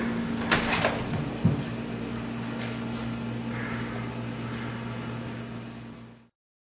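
Vacuum cleaner motor running with a steady hum and hiss, with a few knocks in the first second or so. The sound fades and cuts off about six seconds in.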